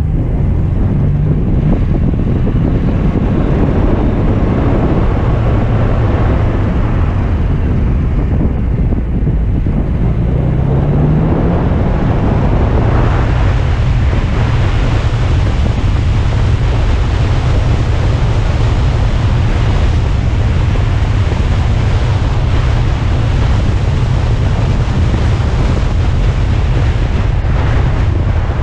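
Alfa Romeo Spider driving on the road, its engine running low under heavy steady wind noise on the microphone; the engine note rises briefly about ten seconds in.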